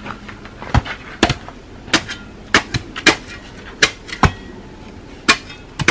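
Steel digging bars driven into hard, stony soil by several workers, giving about nine sharp, uneven strikes spaced roughly half a second apart as the ground is broken up by hand.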